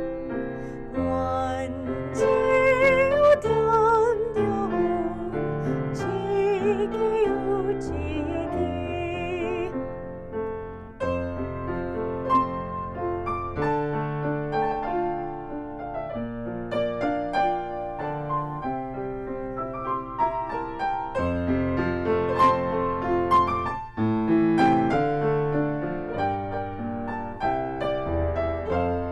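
A woman singing in a classical style with wide vibrato, accompanied by a grand piano. About ten seconds in the voice stops and the piano plays on alone, and the singing comes back at the very end.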